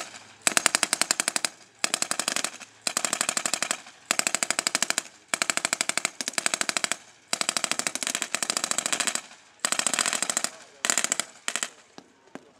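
Machine guns firing blanks in repeated bursts of automatic fire, each about a second long with short gaps between, thinning to a few single shots near the end.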